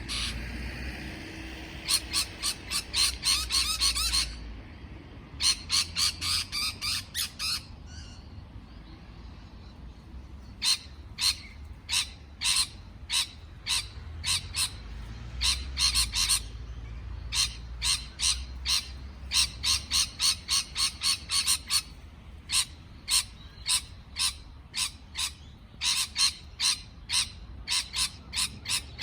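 Parrot calling in rapid runs of short, sharp chirps, about four or five a second, with brief pauses between the runs.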